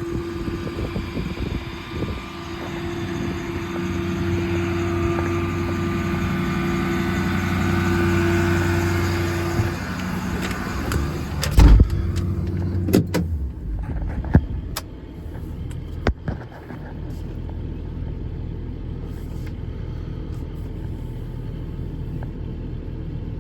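Ford F550's 6.7 Power Stroke V8 diesel running with a steady hum. Several sharp knocks come about halfway through, after which the engine hum goes on lower and quieter.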